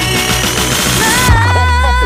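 Background pop music with a wavering melody line; a deep bass note comes in about halfway through and holds.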